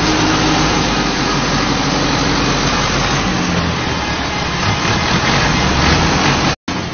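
Loud, steady running of farm tractor diesel engines as a parade of tractors drives past: a red Ursus C-385A close by, then a column of tractors led by a green tractor approaching. The sound drops out abruptly near the end.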